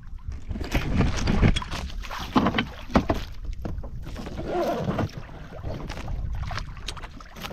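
Sea water slapping and splashing against the hull of a small outrigger boat, with wind buffeting the microphone and irregular knocks.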